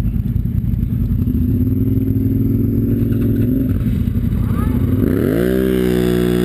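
ATV engine running hard under load, churning out of deep mud. About five seconds in it revs up sharply and holds high revs.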